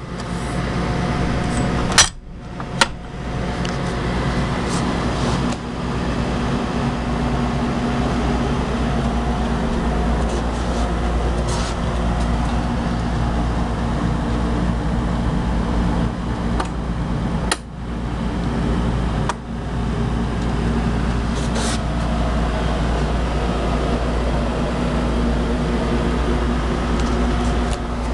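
Steady hum of air-conditioning machinery, with two sharp clicks close together about two seconds in and a couple of faint ones later.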